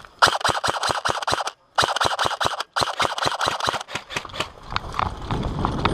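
Airsoft rifles firing on full auto: rapid sharp cracks at about nine a second, cut off twice for a moment. After about four and a half seconds the firing thins into scattered shots over a low rumbling noise.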